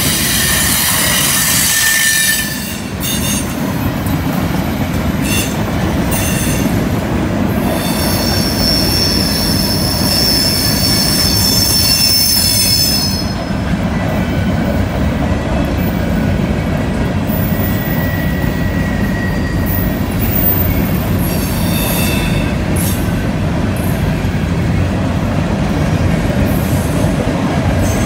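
Freight cars rolling past on a curve: a steady rumble of steel wheels on rail with a few clacks, and a high wheel squeal from the flanges grinding against the curved rail, strongest near the start and again for about five seconds in the middle.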